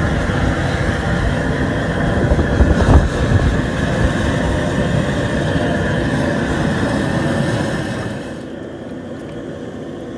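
Steady loud rushing of a propane jet burner heating a crawfish boil pot, with a brief louder surge about three seconds in. It drops to a quieter background about eight seconds in.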